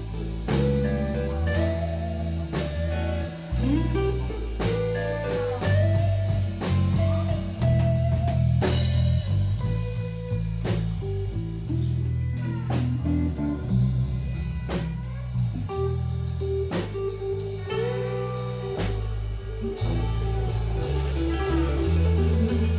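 A live band playing: electric guitars with gliding, bent lead notes over low bass notes and a drum kit keeping a steady beat.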